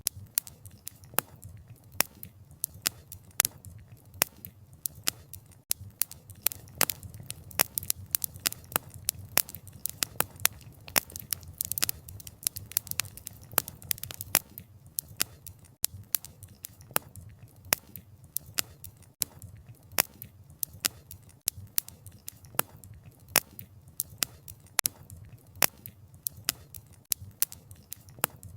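Wood fire crackling: burning firewood gives irregular sharp pops and snaps, several a second, over a low steady rumble of flames, with a denser flurry of crackles about halfway through.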